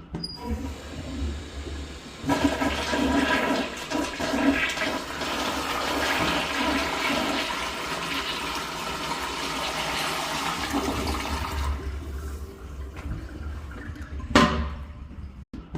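Rich Plus toilet flushing: water rushes through the bowl for about ten seconds and then tapers off. A sharp click comes near the end.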